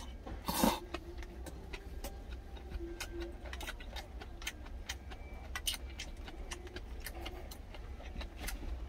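A loud slurp of food from a stainless steel tin about half a second in, then chewing with scattered light clicks over a steady low hum.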